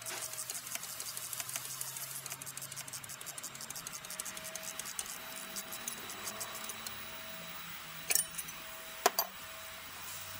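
Ratchet wrench clicking rapidly in short runs while bolts are worked on a car engine, then two sharp knocks near the end.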